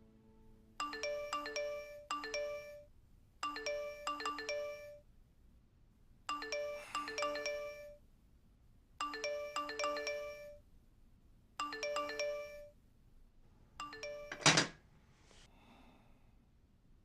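Mobile phone ringtone: a short melody of a few chiming notes, repeated six times at even intervals. It ends with a single loud knock near the end.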